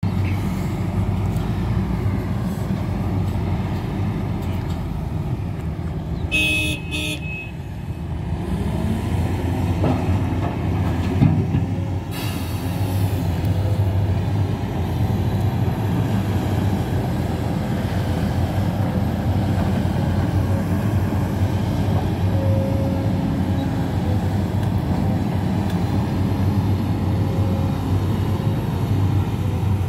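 Hidromek HMK 500LC 50-ton excavator's diesel engine running steadily under digging and loading work, rising in pitch about eight seconds in. A vehicle horn sounds for about a second around six seconds in, and a single thump comes about eleven seconds in.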